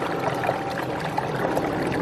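Winter mountain stream running over rocks: a steady rushing of flowing water, with small gurgles and splashes scattered through it.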